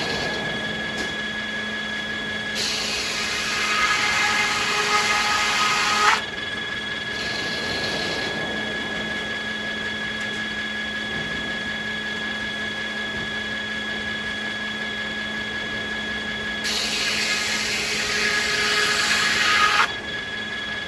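Sawmill saw running steadily, making two cuts through American beech. Each cut lasts about three and a half seconds, builds in loudness with a high singing whine and stops sharply as the blade exits the wood.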